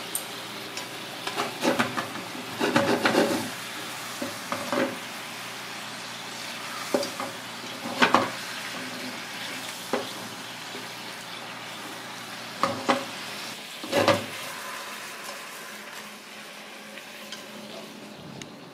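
Mahi mahi fillets sizzling in a pan of bubbling dark glaze, with chopsticks knocking and scraping against the pan as the fillets are turned and lifted. The sizzle dies down near the end.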